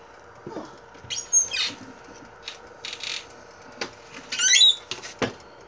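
Metal fork poking and scraping a baked potato in an air-fryer basket. Two high squeaks that bend in pitch, about a second in and again around four and a half seconds in, among a few light clicks and taps, over a low steady hum.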